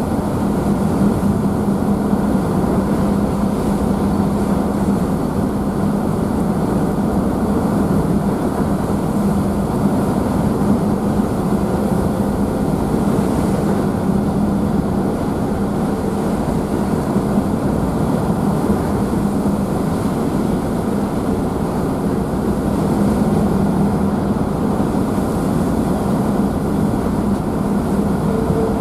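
Car ferry's engines running in a steady drone with a low hum, mixed with the rushing wash of the wake heard from the open rear deck.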